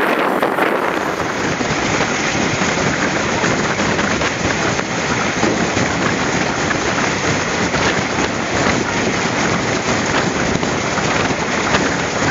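Steady rush of wind buffeting the microphone held out of a moving train's carriage window, over the rumble of the train running on the rails.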